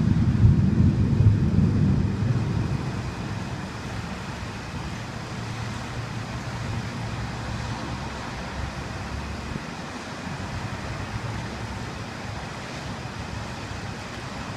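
Steady wind noise on the microphone during a storm, with a louder low rumble over the first two seconds that then settles.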